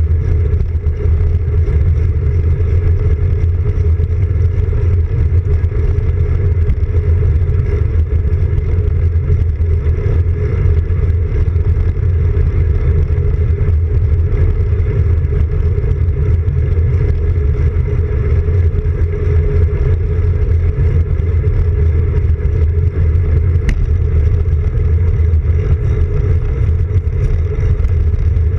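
Steady wind rush and low road rumble from a road bike rolling on asphalt, picked up through a handlebar-mounted camera, with wind on the microphone.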